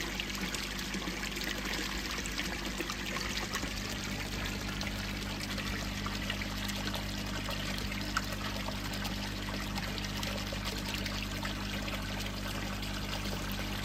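Steady pouring and trickling of water splashing into a koi pond from the filter return, over a faint steady low hum.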